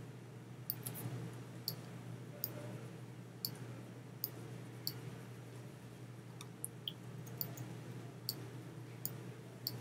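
Computer mouse button clicking a dozen or so times at irregular intervals as layers are clicked and dragged in editing software, over a faint, steady low hum.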